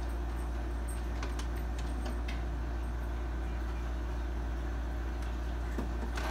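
Steady low hum, with a few faint clicks about one to two seconds in.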